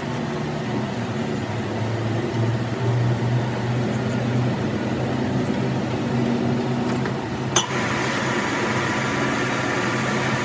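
Metal lathe humming steadily with its spindle stopped. About three quarters of the way through, a sharp clack as the spindle is engaged, and the chuck then spins with the spider shaft in it, adding a higher whir over the hum.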